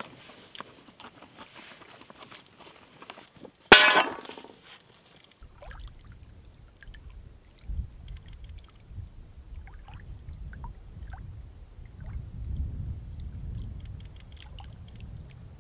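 Spoons scraping and tapping on metal camp plates, with one sharp metallic clink about four seconds in. Then a low wind rumble on the microphone, with faint small waves lapping at the lake shore.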